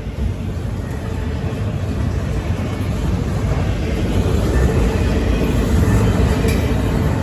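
Double-stack container well cars of a fast freight train rushing past, a steady rumble of steel wheels on rail that grows gradually louder.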